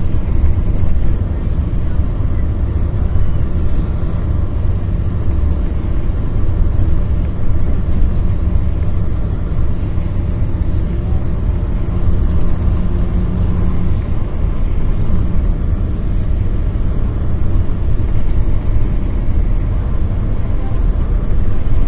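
Sleeper bus driving, heard from inside the passenger cabin: a steady low rumble of engine and road noise with a faint hum, no sudden events.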